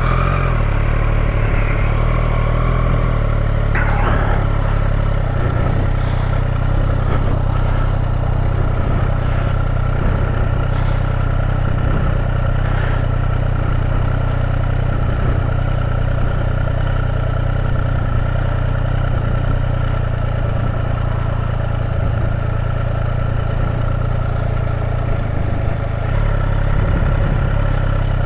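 Triumph Street Triple RS's 765 cc three-cylinder engine running steadily at low revs as the motorcycle is ridden slowly through a tight U-turn.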